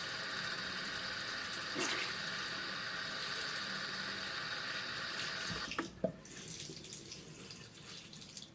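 Water running from a tap into a sink, then shut off about two thirds of the way through with a short knock, leaving only faint small sounds.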